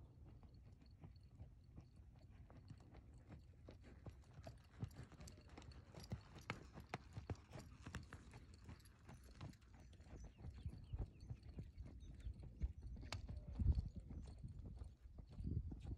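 Hoofbeats of a ridden gelding moving over arena sand, faint at first, growing more frequent and distinct as the horse passes close by in the middle, then fading as it moves off, with one louder hoof strike near the end.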